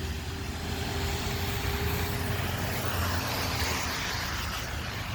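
Heavy rain falling steadily, a continuous hiss, with a low steady rumble underneath.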